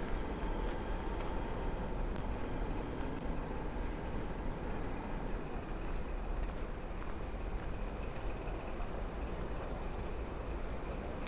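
City street traffic: a steady low rumble of engines and passing vehicles, with trucks or buses among them.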